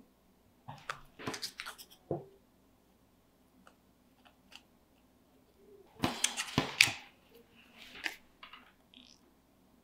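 Small cardstock butterfly wing pieces and a plastic glue bottle being handled close up: crisp paper rustles and clicks in two bursts, about a second in and again around six seconds in, with scattered light ticks between.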